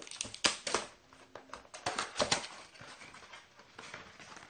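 Trading-card packaging being torn and crinkled open, in two bursts of crackling about a second and a half apart.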